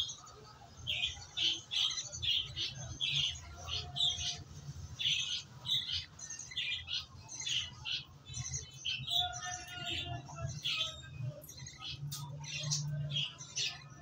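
Hand-fed budgerigar chicks giving rapid, high-pitched begging chirps, several a second, over a steady low hum.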